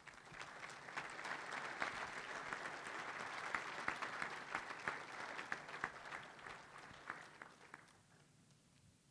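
Audience applauding, starting right away and dying out about eight seconds in.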